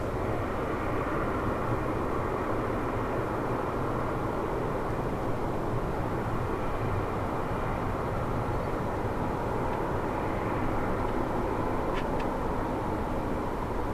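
Jet engine noise from a Boeing 777-300ER's GE90-115B turbofans: an even, steady rumble that neither rises nor falls.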